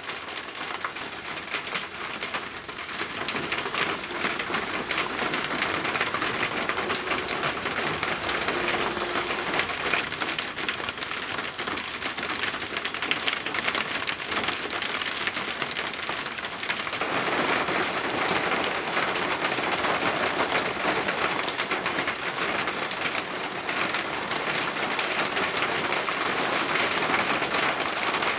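Heavy thunderstorm rain falling, with many separate drops striking a hard surface close by. It grows louder about four seconds in and again about seventeen seconds in.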